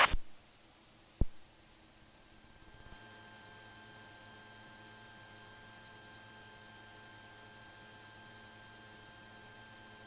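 Steady electrical hum and buzz made of several fixed tones, with one short click about a second in. The hum fades in and holds level from about three seconds on. There is no engine noise in the audio feed.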